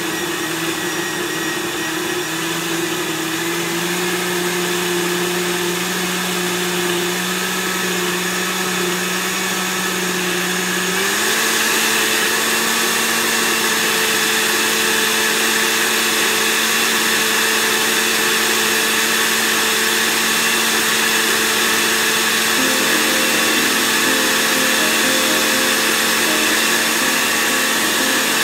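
Countertop blender running, pureeing roasted red peppers and liquid into a thick coulis: a steady motor whine whose pitch steps up suddenly about a third of the way through.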